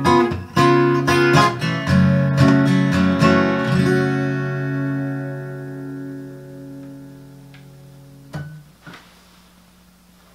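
Acoustic guitar strummed to the end of a song, the last chord left to ring and fade. About eight seconds in the ringing is cut off with a soft knock, leaving a faint steady hum.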